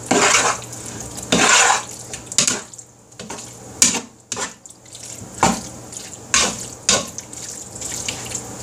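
A slotted metal spatula stirring a thick, wet filling of chicken, vegetables and condensed cream of mushroom soup in a large bowl: a series of separate wet stirring strokes, roughly one a second.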